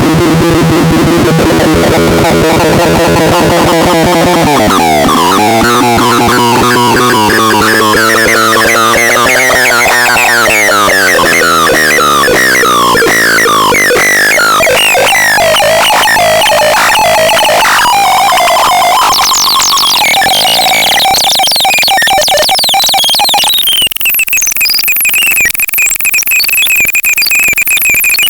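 Electronic sound device playing loud synthesized tones: a stacked tone that glides slowly up and then down with fast warbling chirps over it. Near the end it switches to a steady, high, alarm-like tone.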